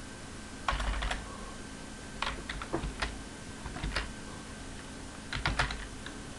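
Computer keyboard being typed on in short bursts of a few keystrokes, with pauses of about a second between bursts.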